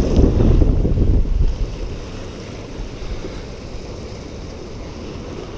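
Wind buffeting the microphone over sea waves washing against the rocks of a jetty, a rough low rumble that is strongest for about the first second and a half and then eases.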